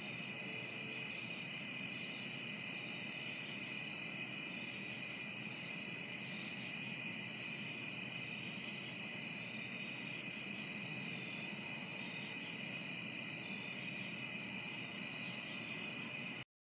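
Night chorus of crickets: a steady, shrill, many-voiced trilling. A fainter, higher pulsed chirping at about six beats a second joins about twelve seconds in. The sound cuts off suddenly near the end.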